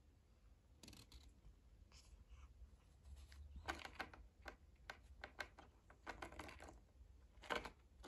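Faint, scattered scratches and light taps of a cardboard box flap being shifted in the hand, busiest in the middle with a sharper tap near the end.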